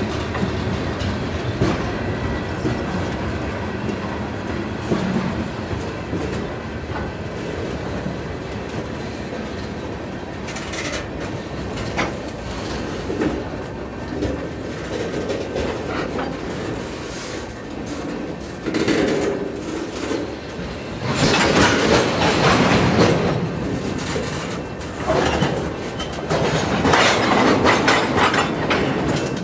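Tank cars of a CN freight train rolling past at close range: steady wheel-on-rail noise, with louder surges of wheel and car noise in the second half.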